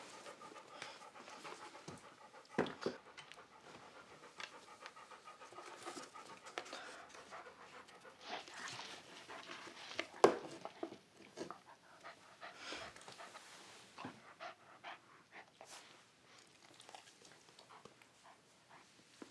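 A dog panting, with clothes rustling and scattered clicks and knocks as things are handled. A single sharp knock about ten seconds in is the loudest sound.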